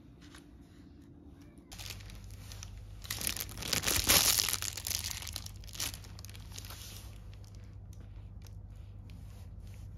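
Crinkling and rustling handling noise close to the microphone, building to its loudest about four seconds in and dying away over the next two, over a steady low hum.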